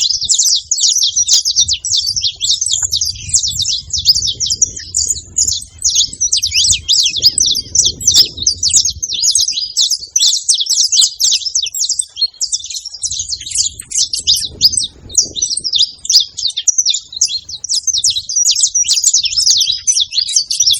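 A group of saffron finches chirping together, many short, quick calls overlapping without a break. A low rumble comes and goes underneath at times.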